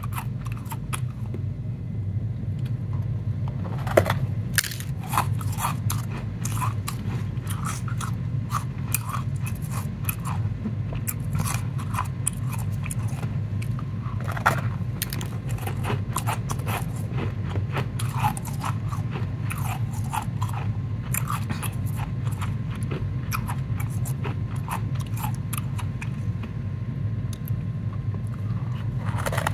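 Gloved hands squeezing and crumbling a block of powdery ice, giving irregular soft crunches and crackles, with a few sharper snaps. A steady low hum runs underneath.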